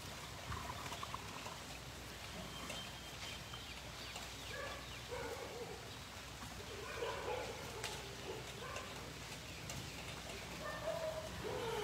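Faint, scattered short animal calls, a few each few seconds, over a steady low background hum.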